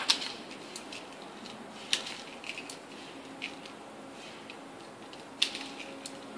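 A handful of sharp, irregular clicks, about five in all, over a steady low background hiss.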